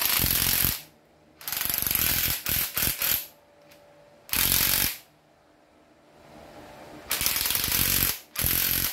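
Makita TD021D 7.2 V folding cordless impact driver run in a series of short trigger bursts, about five, each under a second to about two seconds long, its hammer mechanism rattling. The unit is in working order, with what the seller calls very smooth running and a strong hammer.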